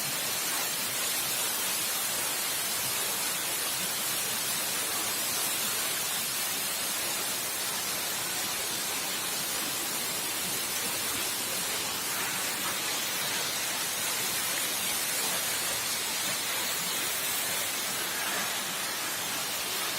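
Steady rushing hiss of a tall waterfall, the water falling and spraying without a break.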